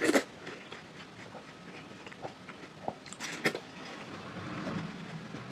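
Close-up crunchy bites into watermelon and chewing. A loud crisp crunch comes right at the start, another pair about three seconds in, with softer wet chewing clicks in between.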